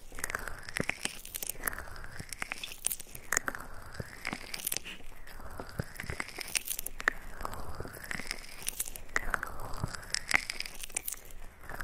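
ASMR ear rubbing on a binaural microphone: close, crackly rubbing strokes that sweep down and back up, repeating about every one and a half seconds, with sharp crackles and clicks throughout.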